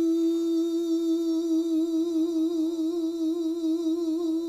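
A gospel singer holding one long sung note with steady vibrato at the close of a song.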